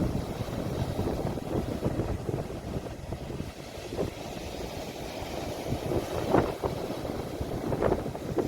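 Sea waves recorded on a phone's microphone, heavily buffeted by wind: a steady low rumbling wash with irregular surges, a few brighter swells near the end.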